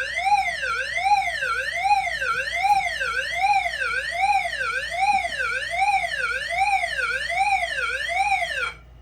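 Fire alarm voice-evacuation speakers sounding the agent release signal, which means the suppression releasing system has been activated: a loud tone sweeping steadily up and down, about one and a half sweeps a second. It cuts off shortly before the end.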